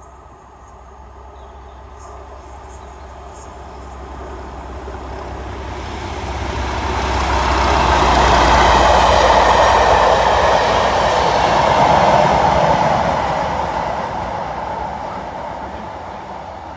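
Class 37 diesel locomotive 37099 and its test-train coaches passing at speed. The engine rumble and wheel noise build as it approaches, are loudest from about eight to twelve seconds in, then fade as it goes away.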